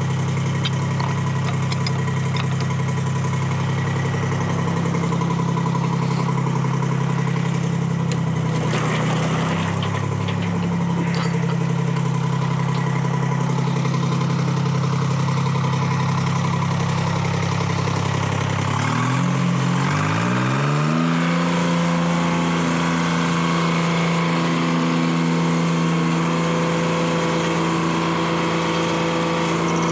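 Detroit Diesel 3-71 two-stroke three-cylinder diesel running steadily as the power unit of a sawmill. About two-thirds of the way through, its pitch rises quickly and settles at a higher, steady speed.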